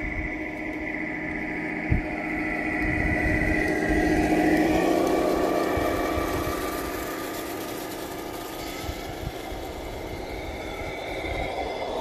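1:14 scale radio-controlled semi-trucks driving past, giving a steady engine-like drone. It grows louder to a peak about four to five seconds in as the nearest truck goes by, then eases off.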